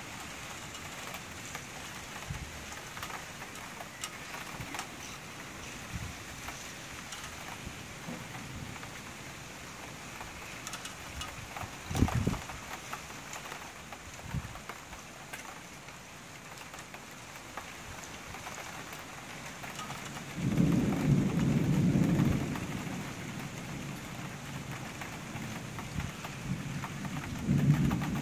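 Steady rain falling during a thunderstorm. About twenty seconds in, thunder rumbles loudly for a couple of seconds, and it rumbles again briefly near the end. A single short sharp bang comes about twelve seconds in.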